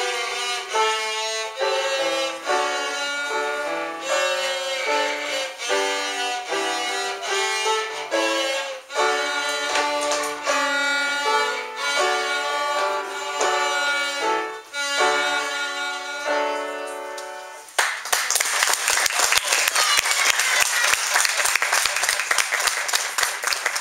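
Two cellos played by first-year music pupils with piano accompaniment, a short piece of separate, stepwise notes that ends about eighteen seconds in. The audience then breaks into applause.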